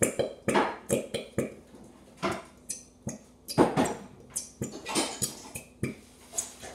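A glitter glue squeeze bottle squeezed hard over a metal mixing bowl, giving a string of short, irregular squirting bursts as glue and air are forced out.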